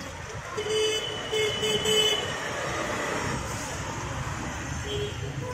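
A vehicle horn honking in four quick short toots about a second in, with another short toot near the end, over a steady low rumble of traffic.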